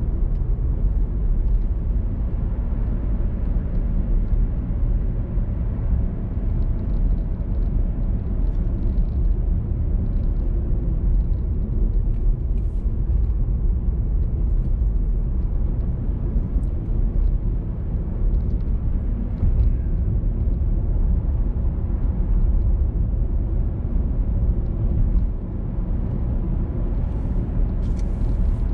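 Car driving at a steady speed: a constant low rumble of engine and tyre noise, with a few faint light ticks.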